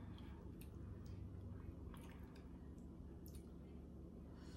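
A metal spoon scooping taco meat into a crunchy taco shell: soft, faint handling with a few small clicks and taps, over a low steady room hum.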